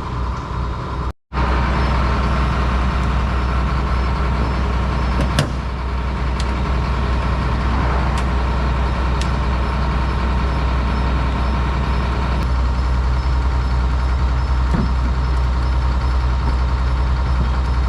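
Steady low drone of a motor vehicle's engine running, starting after a brief break about a second in, with one sharp click about five seconds in.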